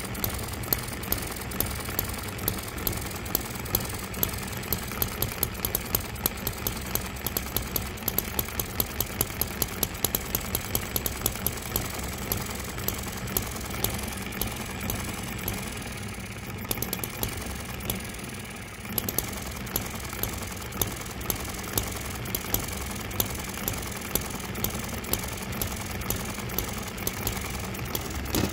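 Microcosm M94 hit-and-miss model engine running, with a steady mechanical whir and sharp clicks of its firing strokes coming at uneven intervals. For a few seconds just past the middle the clicks thin out and the sound drops a little as the engine coasts, then the firing picks up again.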